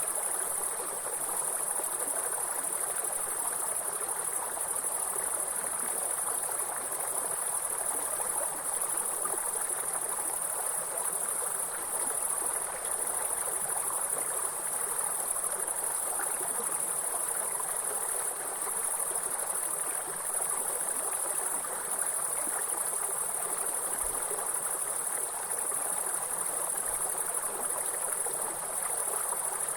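Steady high-pitched insect chorus over the even rush of a stream.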